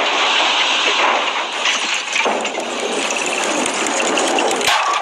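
Film sound effects of an old car: a steady, noisy engine-and-hiss rush with scattered clattering, and a sharp knock near the end.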